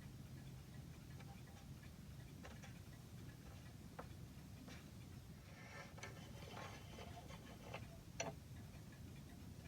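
Faint, irregular light clicks and taps over a low steady room hum, thickest in the second half, with the sharpest click about eight seconds in. The clicks come at uneven spacing, so this is not a running clock's tick.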